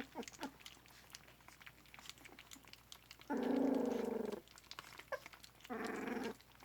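Puppies eating together, with many small clicks, squeaks and smacking sounds. Two louder, low, pulsed vocal sounds break in: one about a second long just past the middle, and a shorter one near the end.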